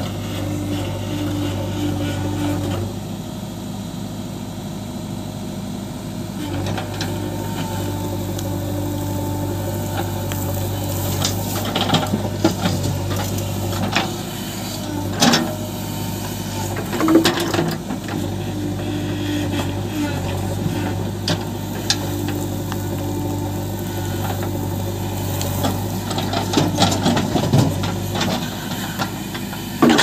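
JCB 3DX backhoe loader's diesel engine running steadily under digging load, its hydraulics working the backhoe arm. The steel bucket scrapes and clanks against stony soil, with several sharp knocks, the loudest about halfway through.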